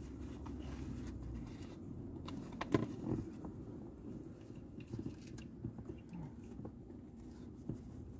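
Faint rustling and a few sharp clicks as a cup-shaped respirator mask is handled and its elastic straps are pulled over the head and fitted. Underneath is a steady low hum of the car interior.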